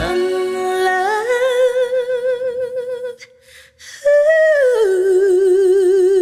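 A woman's voice singing unaccompanied held notes with a wide vibrato. One note steps up about a second in and is held. After a short breath, a second note starts high, slides down and is held.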